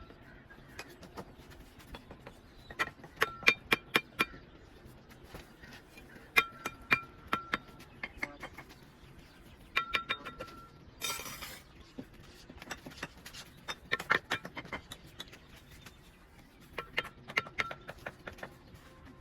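A mason's steel trowel clinking against brick and mortar in short bursts of quick, ringing taps, with a brief scrape about eleven seconds in.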